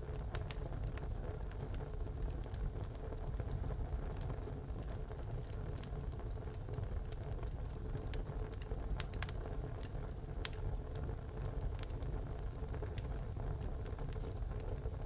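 Wood fire burning in a tile stove: a steady low rumble of the flames, with sharp irregular crackles and pops from the burning wood.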